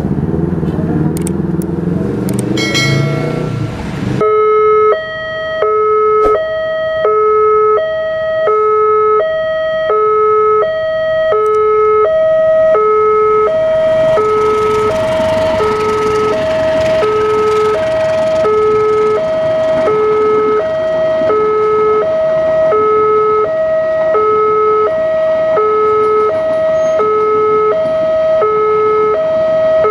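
Railway level-crossing electronic warning bell sounding, a low and a high note alternating evenly about every two-thirds of a second, starting about four seconds in after road traffic noise. It is the alarm that a train is approaching and the barriers are down.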